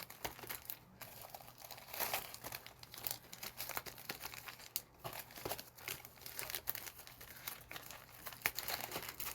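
Plastic wrapper of a trading-card booster pack crinkling and tearing as it is handled and opened, a quiet, irregular run of small crackles.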